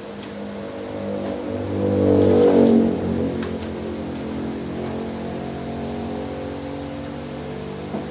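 A motor or engine running with a steady hum of several pitches, swelling loudest about two and a half seconds in and then holding steady.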